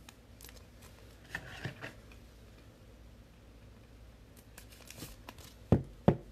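Trading cards and wrappers being handled on a table: faint clicks and a soft rustle, then a few sharp knocks near the end.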